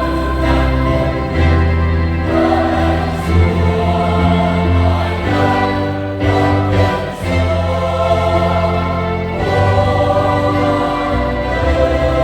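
Choir singing an Easter hymn in long held chords, over sustained low notes.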